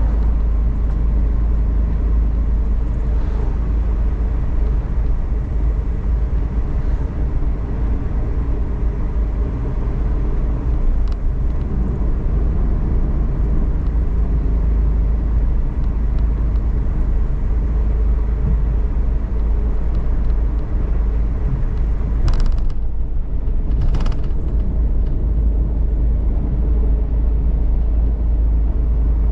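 Cabin noise of a Suzuki Every DA17V kei van on the move: a steady, heavy low road rumble with the hum of its 660 cc three-cylinder engine. Two brief rushing sounds come a little over two-thirds of the way through.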